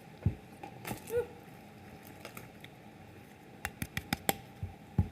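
Scattered light clicks and taps close to the microphone, with a quick run of sharp clicks about three and a half seconds in.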